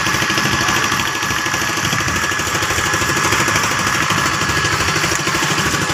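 Small engine on an outrigger fishing boat running steadily with a fast, even beat.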